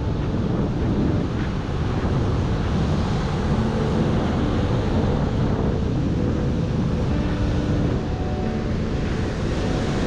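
Wind buffeting the microphone over the steady rush of surf breaking on a sandy beach.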